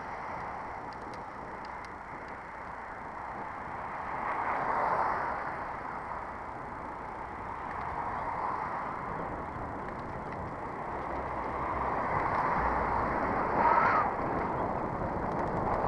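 Wind and tyre noise from a moving bicycle: a steady, muffled rush that swells about five seconds in and again near the end.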